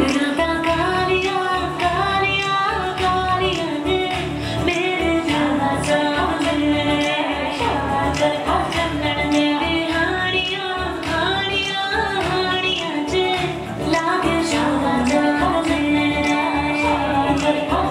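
A Punjabi song with a woman singing over a steady beat.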